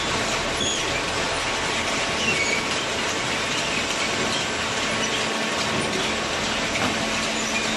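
Machinery running steadily: a loud, even mechanical noise with faint high squeaks and clicks over it.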